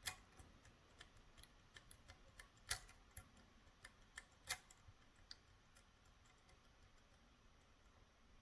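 Faint, irregular small metallic clicks of a lock pick working the pins of a 5-pin Medeco Biaxial lock held under tension, as pin 5 is probed; the clicks thin out after about five seconds.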